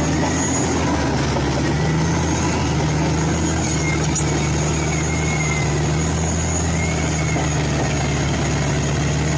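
Caterpillar D9 crawler bulldozer's diesel engine running steadily with a deep, even hum as the dozer moves on its tracks.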